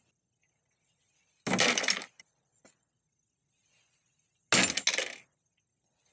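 Two short clatters of small metal pieces on a hard surface, about a second and a half in and again about four and a half seconds in.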